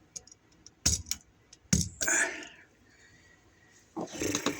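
Sharp clicks and small metallic clatter from handling a wall receptacle, its wire and a screwdriver while a wire loop is set around a terminal screw: a few separate clicks, then a quick cluster of rattling clicks near the end.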